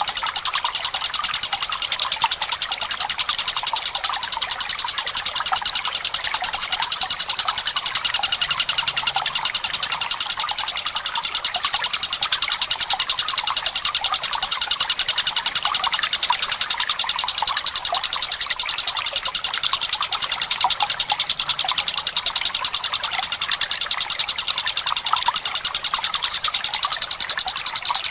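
Tengkek buto kingfisher calling in a long, fast rattling trill of rapidly repeated high notes, over a bed of trickling water.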